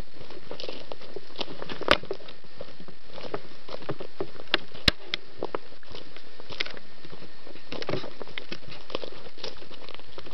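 Footsteps crunching irregularly over dry forest floor, with two sharper snaps about two and five seconds in.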